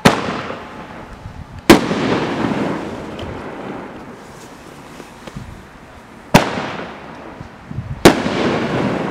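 Dominator First Strike 7-shot consumer fireworks cake firing two shots. Each shot makes two sharp bangs: one as it launches from its tube, and a second about 1.7 seconds later as it breaks in the sky. Each bang trails off in a long echo.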